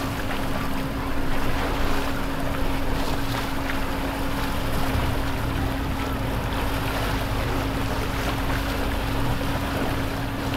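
Boat engines running on the water, with the wash of waves, wind buffeting the microphone, and a steady hum held throughout.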